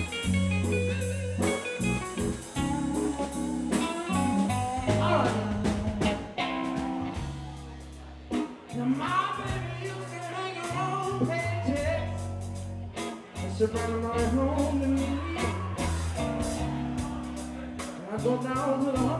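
Live blues band playing: two electric guitars, bass guitar and drum kit, with a man singing the lead vocal.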